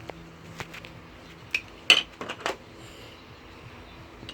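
Plastic Duplo bricks clicking and clattering as they are handled and set down on a table: a few sharp knocks, the loudest about two seconds in.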